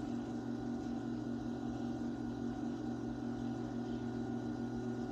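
Electric potter's wheel running with a steady, even motor hum.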